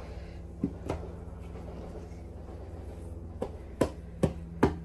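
Light taps and clicks of a spoon and a metal tin lid handled by a toddler, two about a second in and four quick ones near the end, over a steady low hum.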